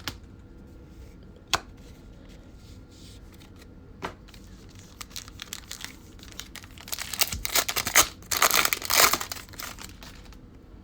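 A Select basketball card pack's wrapper being torn open and crinkled in the hands. A few sharp clicks come first, then the crinkling tear builds and is loudest in the last few seconds.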